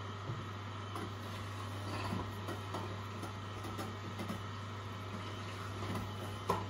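Angel twin-gear slow juicer running with a steady low hum, with scattered light crunches and clicks as produce is pushed down its feed chute with a wooden plunger; one sharper click near the end.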